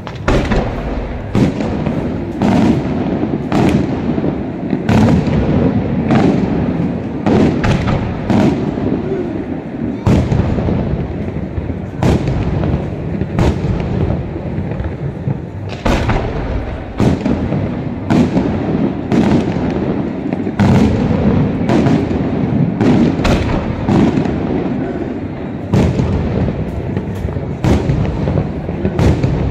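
Aerial firework shells bursting in a continuous barrage, with sharp bangs coming about one to two a second over an unbroken low din of overlapping bursts.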